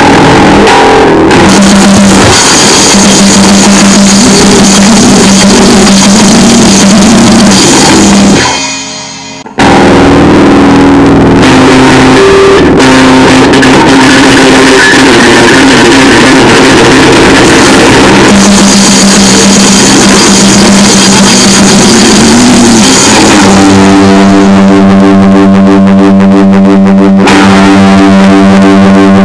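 Crust punk noisecore recording: a dense, heavily distorted wall of guitar and drums played at full loudness. About eight seconds in it fades out for a moment and cuts straight back in. From about two-thirds of the way through, a steady droning chord holds.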